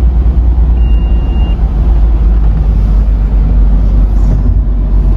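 Car on the move: a steady, loud low rumble of road and engine noise, with a short faint high beep about a second in.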